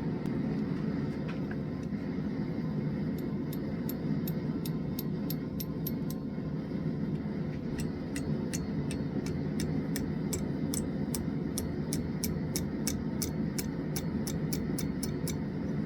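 Steady low roar of a running forge, with a quick, even series of faint sharp ticks, about three a second, through most of it.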